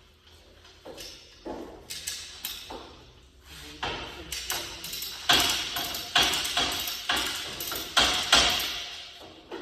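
Irregular metallic clanks and knocks with a short ring, tools and hardware striking steel parts of a heavy commercial overhead door; sparse at first, then quicker and louder from about four seconds in.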